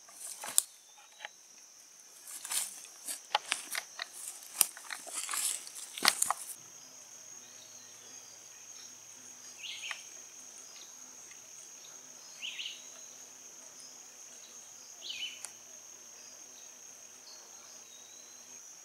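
Footsteps crunching and rustling through leaf litter and brush for the first six seconds or so. Then a steady high buzz of woodland insects, with a few short chirps about every two to three seconds.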